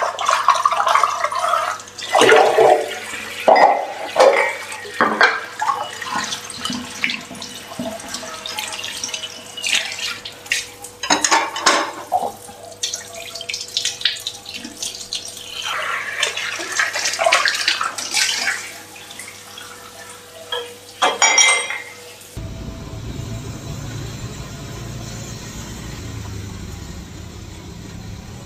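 Kitchen tap running through a flexible spray nozzle, water splashing over dishes in the sink, with clinks of crockery being rinsed. About 22 seconds in it gives way abruptly to a steady low rumble.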